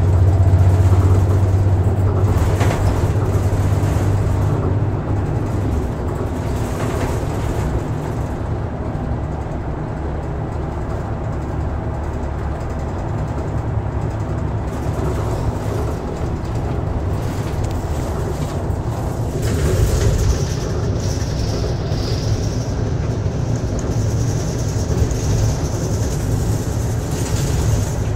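Bus running at speed: steady engine and road noise, with a strong low drone in the first few seconds that eases off, and a high thin whine joining about two-thirds of the way through.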